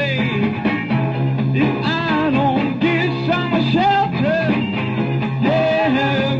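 Rock band music: a steady low bass note under a bending melody line.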